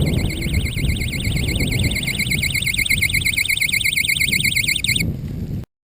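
Electronic tripwire alarm, set off by a player running into the wire, sounding a high, fast-warbling siren that cuts off suddenly about five seconds in. A low rumbling noise runs underneath.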